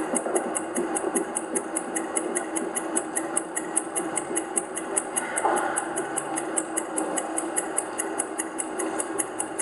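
Suspense background music of a TV game show: a fast, even ticking, about six a second, over a low held drone, heard through a television's speaker.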